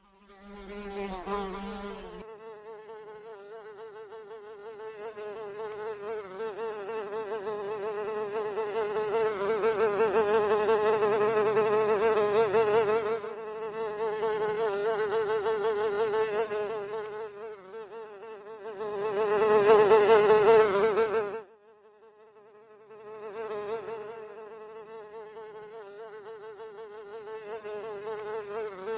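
Blowfly buzzing in flight: a wavering, pitched hum that grows louder and fades again as it flies near and away. It cuts out abruptly about two-thirds of the way through, then starts again.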